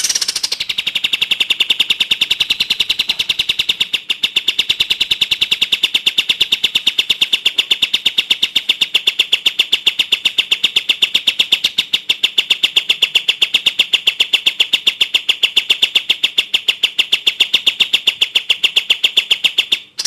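Crested jay (cililin) giving a long, steady rattle of rapid identical notes, about six or seven a second, held at one high pitch without a break.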